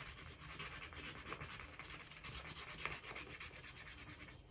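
Faint, rapid scratching: a small hard object scraping at the coating of a scratch-off panel on a paper card, the coating coming off poorly.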